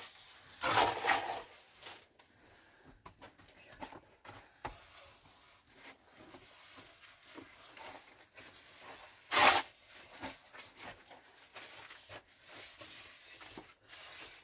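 Scattered light scrapes, rustles and small knocks, with two short louder rasping noises: one about a second in and one near the ten-second mark.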